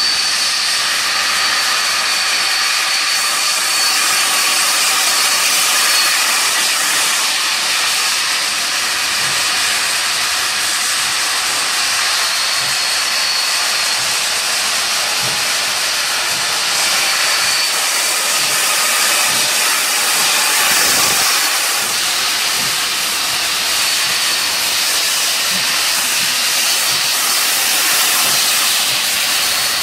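Steam locomotive 3016 hissing steadily as steam blows from its open cylinder drain cocks while it moves slowly forward. A faint high whine comes and goes above the hiss.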